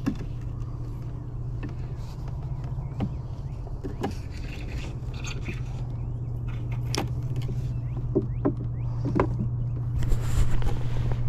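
Fishing tackle being handled in a canoe: scattered sharp clicks and knocks, and a short rustle near the end, over a steady low hum.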